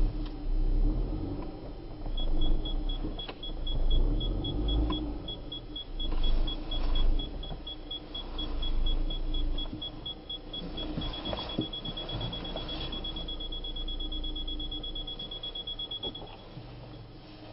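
Skoda Yeti running, heard from inside the car: a low rumble swells and fades several times, while a parking-sensor beeper sounds about four times a second from about two seconds in, closes into a near-continuous tone about eleven seconds in, and stops near the end.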